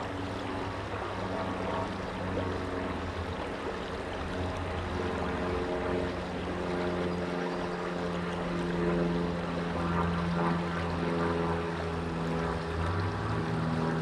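Creek water rushing over a riffle, a steady noise, with a steady low hum running through it.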